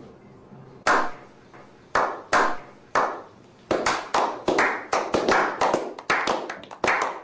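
A slow clap by a small group: single hand claps about a second apart, quickening after about three and a half seconds into a faster, uneven run of overlapping claps.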